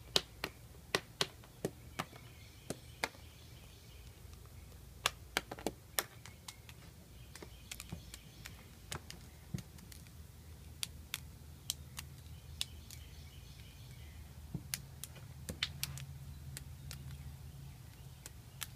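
A moth on a tile floor making sharp popping clicks, like knuckles cracking, at irregular intervals, often one or two a second with short pauses between. The pops come as the moth bends its body in the middle.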